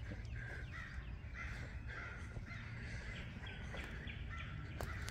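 Crows cawing over and over, a string of short calls about two to three a second, fairly faint.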